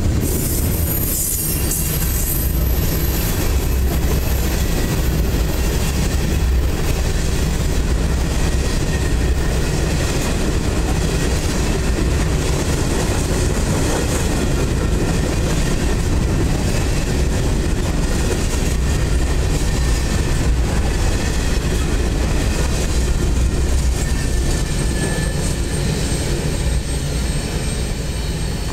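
Freight train cars rolling past close by: steel wheels running steadily over the rails, fading slightly near the end as the last cars move away.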